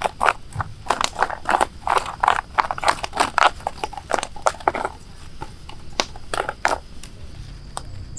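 Mussel shells tipped out of a woven basket onto grass, knocking and clattering against one another with a rustle of grass: a dense run of sharp clicks that thins out after about five seconds.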